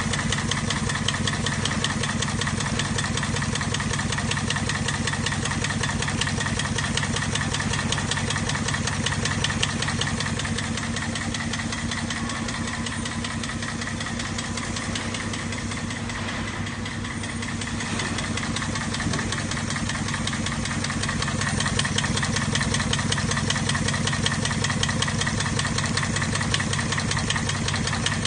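Automatic pearl riveting machine running: a steady buzz of its vibratory nail feeder under a dense, rapid mechanical clatter, continuous with no break.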